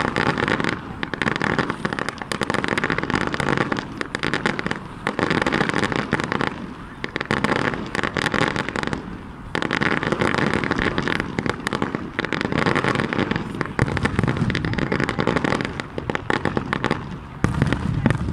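Fireworks display: dense, rapid crackling and popping in surges lasting a second or two, with short lulls between them. Deeper booms grow stronger over the last few seconds.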